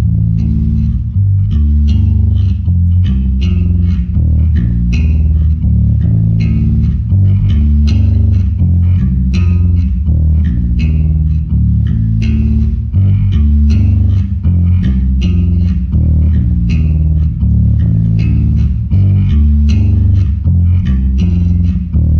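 Electric bass guitar played solo through the PA for a sound check: a steady line of plucked low notes, each with a sharp attack, with no other instruments.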